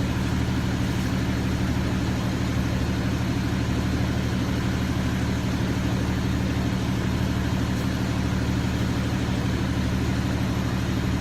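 A vehicle engine running steadily, a low even drone that neither revs nor changes.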